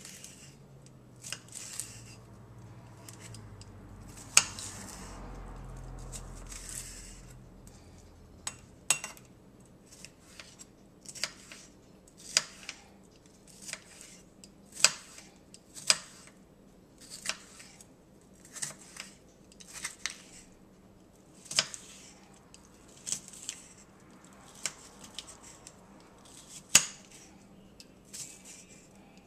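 Kitchen knife chopping bell peppers and onion on a stone cutting board: sharp, irregular clicks of the blade striking the stone, about one or two a second with short pauses.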